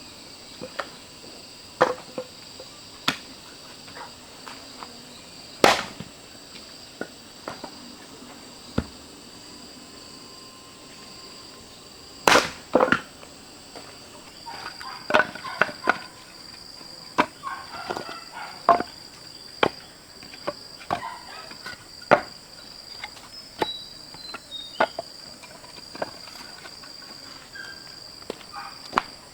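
Steady high-pitched insect drone with irregular sharp knocks of a tool striking, some twenty in all, the loudest a little before halfway and smaller ones coming thicker in the second half.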